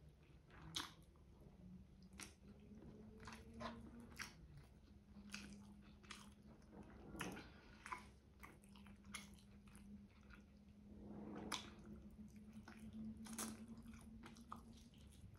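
Close-miked eating sounds: wet chewing and lip smacks of rice and chicken drumstick adobo, with sharp mouth clicks every second or so. A low steady hum runs underneath.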